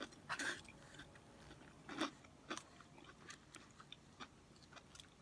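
A person chewing food close to the microphone: faint, irregular small clicks of the mouth and teeth.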